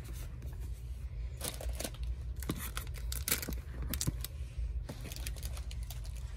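Handling noises: a book being slid across a carpet and a hand brushing over it, a string of short rustles and scrapes over a steady low hum.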